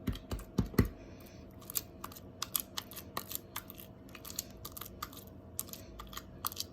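Freshly made glue slime being kneaded and squished by hand, giving rapid sticky clicks and pops. Several louder pops in the first second, then lighter, quicker clicking.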